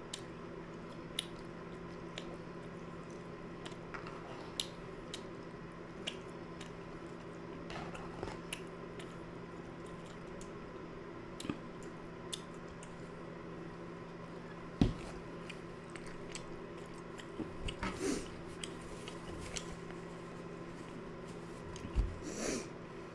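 Close-miked chewing of undercooked fettuccine Alfredo noodles, with small clicks of a fork against a bowl. A single thump comes about two-thirds of the way in, and a clatter near the end as the bowl is set down on the table.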